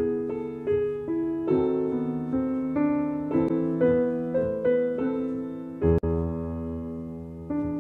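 Background piano music: a steady run of single struck notes over sustained chords, with a deep bass note about six seconds in.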